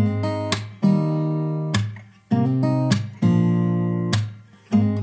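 Background music of acoustic guitar strumming chords, a fresh strum about once a second, each chord ringing and fading before the next.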